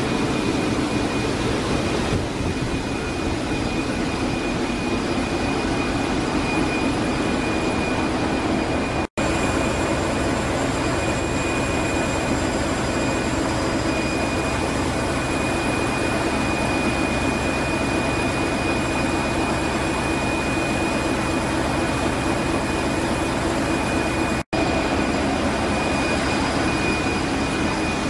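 Ship's engine room noise from Wärtsilä 8L50DF inline eight-cylinder dual-fuel engines running: a loud, steady drone with a high whine over it. The sound drops out for an instant twice.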